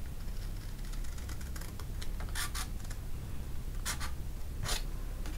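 Scissors snipping into a sheet of cardstock: a few separate short cuts in the second half, under a low steady room hum.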